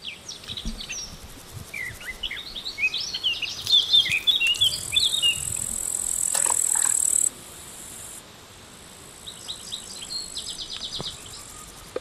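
Birds chirping and twittering, with a steady high insect buzz through the middle that cuts off suddenly about seven seconds in; a quick run of chirps comes near the end.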